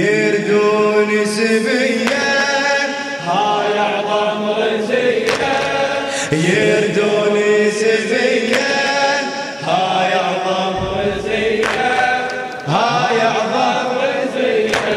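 Male voices chanting a Shia latmiyya mourning lament in Arabic, without instruments, in drawn-out phrases that start afresh about every two seconds.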